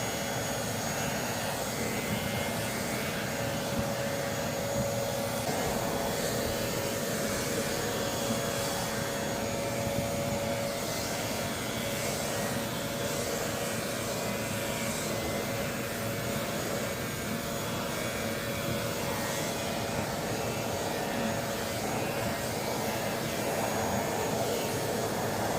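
Pet-grooming vacuum with a clipper attachment running steadily: an even motor whir with a steady whine.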